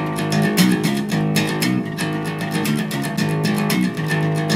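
Electric bass guitar played with a clean tone, no banknote between the strings: a quick run of plucked notes.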